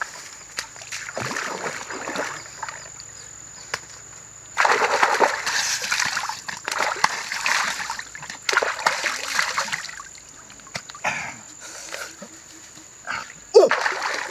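Shallow stream water splashing and sloshing as a person wades in and scoops it up with his hands to wash his face. The splashing comes in loud bursts from about a third of the way in and eases off after about ten seconds.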